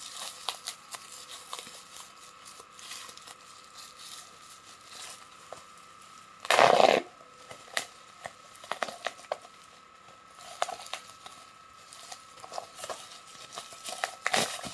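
Parcel packaging being handled and opened: scattered light clicks and rustles, with one loud rip about six and a half seconds in.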